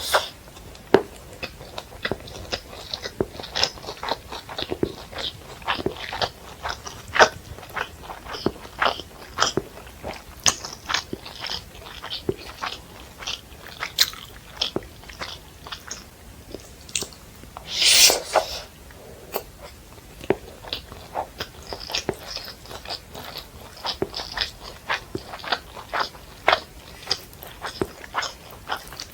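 Close-miked eating of fried rice and Manchurian: steady chewing with many quick, irregular wet mouth clicks. One longer, louder sound, about a second long, comes roughly two-thirds of the way through.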